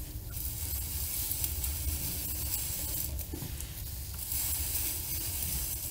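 Hand-turned head tube facing cutter scraping across the top face of a bicycle head tube, its teeth wet with cutting fluid: a steady rasping hiss in two long strokes, with a low rumble beneath.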